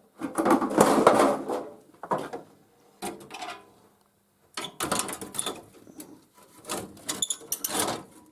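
An enamelled top plate being worked into a sheet-metal gas lamp top by hand: scraping, rubbing and knocking in four bursts with short pauses between them.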